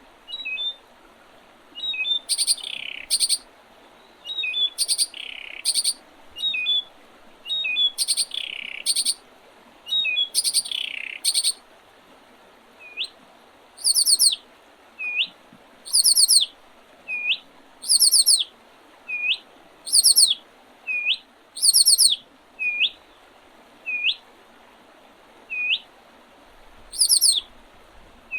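Small songbirds singing and calling: one repeats a short hooked whistle about once a second, while another gives quick runs of very high, thin notes. A few rougher, harsher calls join in during the first half.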